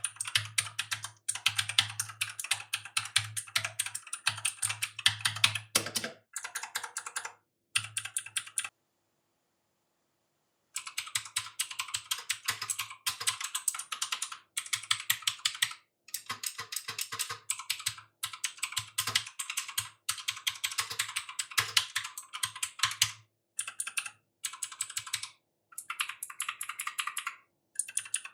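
Fast typing on mechanical keyboards with clicky blue switches, a dense stream of sharp key clicks. It stops for about two seconds roughly a third of the way in, then resumes with a few brief pauses.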